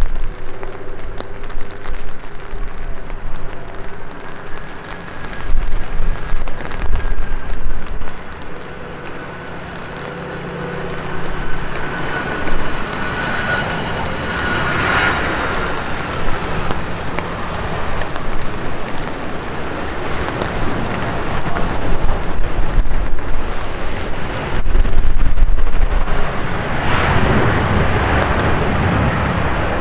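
Boeing 767-300ER freighter's jet engines on landing approach. The engine noise and a high whine build to a peak about halfway through, then ease, and a second swell of engine noise comes near the end.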